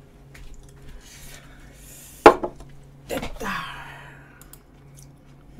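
A rice bowl set down hard on the table with a sharp knock about two seconds in, followed by about a second and a half of rubbing and scraping.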